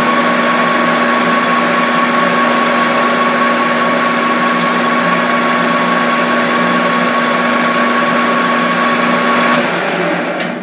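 Metal lathe running, its chuck spinning a rod while a center drill in the tailstock chuck drills the rod's end, with a steady hum and a high whine. Near the end the motor is switched off and the machine spins down.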